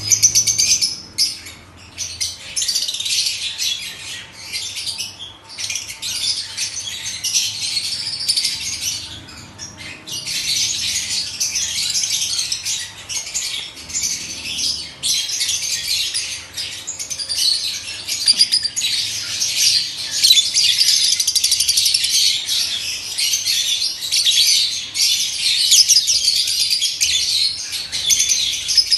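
Fischer's lovebirds chattering and screeching almost without pause, a high-pitched twittering.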